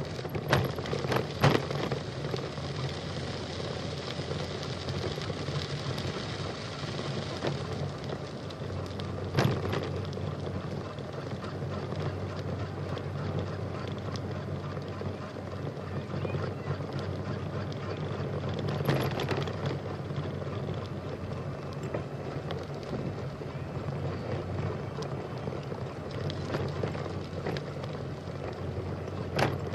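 Steady running noise of a bicycle ride: a continuous rumble of tyres and wind, with a few sharp knocks or rattles about a second in, near ten seconds, near nineteen seconds and at the end.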